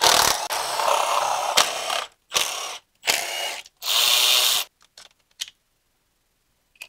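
Milwaukee M12 FUEL cordless ratchet spinning, first in one run of about two seconds and then in three short half-second bursts, as it runs out valve cover bolts on a BMW M54 engine. A few faint clicks follow near the end.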